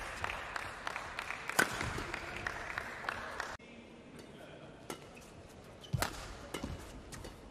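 Badminton rackets striking a shuttlecock in sharp, separate hits, the loudest about one and a half seconds in and again about six seconds in. The busier background of short sounds cuts off suddenly a little over three and a half seconds in.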